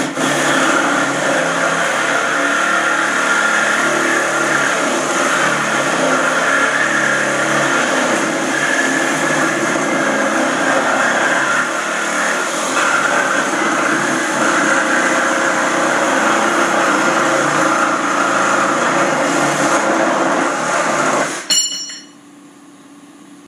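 Handheld cordless power tool cutting steel tubing, its motor running under load for about twenty seconds. It stops abruptly near the end, followed by a brief metallic ring.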